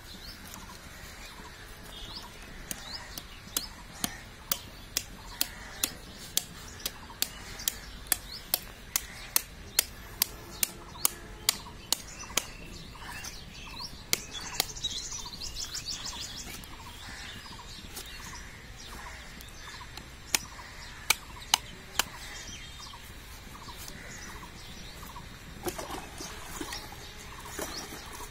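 Birds chirping, with a run of sharp ticks about two a second for several seconds, a brief high trill midway, and a few more ticks later.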